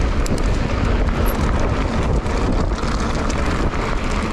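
Wind rushing over an action camera's microphone on a moving mountain bike, a steady loud rumble with scattered light ticks.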